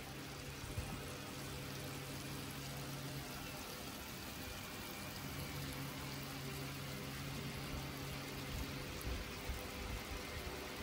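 Steady sizzling hiss of a cheese-topped baked pasta dish just out of the oven, over a low hum that drops out briefly about three and a half seconds in and again near the end.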